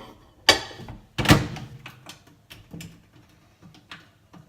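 Microwave oven door being opened and shut: two sharp knocks about half a second apart a second or so in, followed by a few light clicks.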